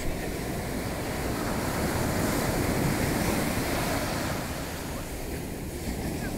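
Sea surf washing up the beach, a noisy rush that swells about two seconds in and eases off again, with wind buffeting the microphone.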